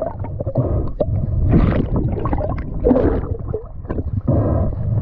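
Muffled underwater sound from a camera held under the sea: irregular rushing and gurgling of water moving past the housing as the diver swims, with scattered knocks.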